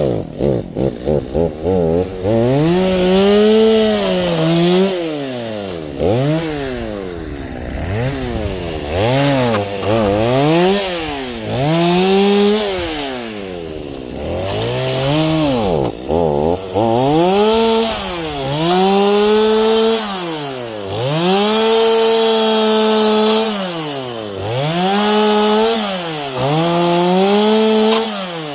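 Stihl chainsaw cutting branches: the engine is revved up and let fall back over and over, held at high speed for a second or two at a time. It gives a few quick throttle blips in the first couple of seconds.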